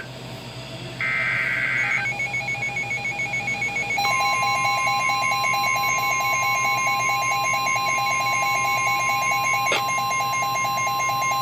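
NOAA weather radio emergency alert: a screechy warbling burst of SAME digital header data ends about two seconds in, then rapid even beeping starts, and about four seconds in the steady single-pitch warning alarm tone comes on and holds. A click sounds near the end. These tones herald a broadcast severe thunderstorm warning.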